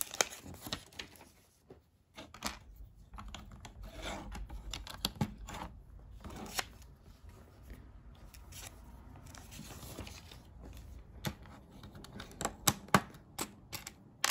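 Plastic LEGO pieces being handled and clicked together, with the paper pages of an instruction booklet rustling as they are turned. The sharpest clicks come near the end.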